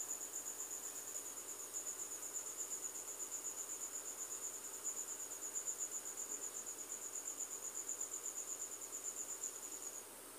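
A cricket chirping steadily in a high, evenly pulsed trill of about five pulses a second, which stops abruptly near the end.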